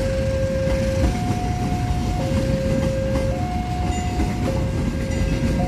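Passenger train coaches rolling past close by with a steady rumble over the rails. Over it, a level-crossing warning alarm sounds two alternating tones, each held about a second.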